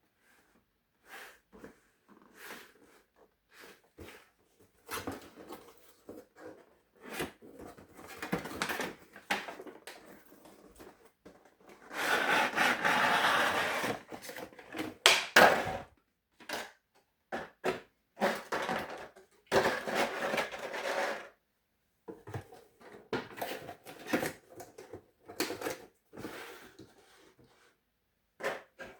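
Hands handling a boxed alarm clock and its packaging: scattered clicks, knocks and rustles, with a longer, louder rustle about twelve seconds in.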